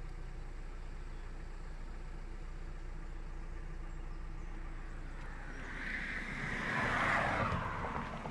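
A vehicle driving past on the road: tyre and engine noise swells from about five and a half seconds in, peaks with a falling pitch, then fades away near the end. Under it runs a steady low rumble.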